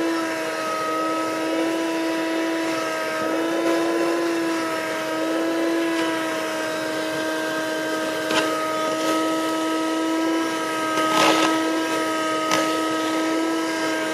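Cheap 12-volt portable car vacuum running with a steady high whine whose pitch wavers slightly. A few short clicks and rattles in the second half as it picks up bits of trash.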